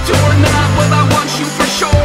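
Music with drums and a bass line.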